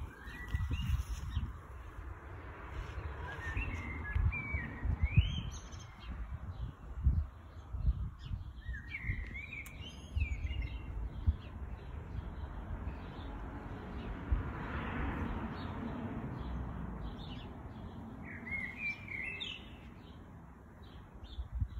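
Garden birds chirping in short rising and falling calls, several times, over a low rumble with occasional dull thumps.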